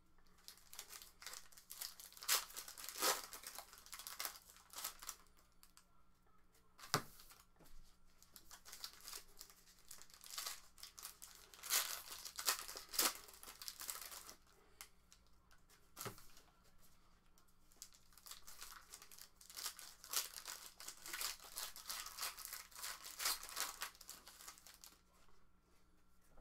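Sports trading card pack wrappers being torn open and crinkled, in three spells of crackling rustle, with two sharp taps in between.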